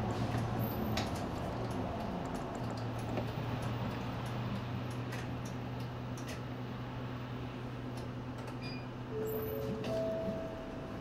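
City bus engine running low and steady, heard from inside the front of the cabin as the bus creeps in traffic, with scattered light clicks and rattles. Near the end comes a short two-note electronic chime.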